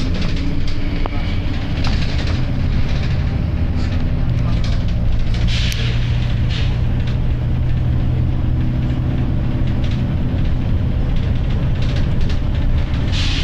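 Volvo B9TL bus's diesel engine running at a steady idle with a low hum, with several short bursts of compressed-air hiss from its air system, the strongest about halfway through and near the end.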